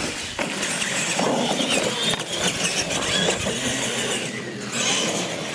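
Radio-controlled monster trucks racing across a concrete floor: small electric motors whining, rising and falling in pitch, over a rush of tyre noise.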